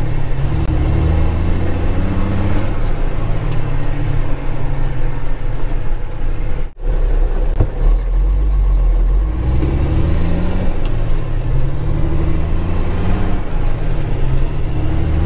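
Ford L9000 dump truck's diesel engine heard from inside the cab, pulling away with its pitch rising and falling through the gears. The sound cuts out for an instant just under seven seconds in.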